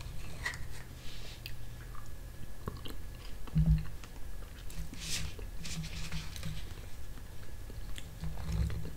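Someone eating soft strawberry gelatin from a plastic cup: scattered wet mouth and lip smacks, with small clicks and scrapes of a spoon against the cup.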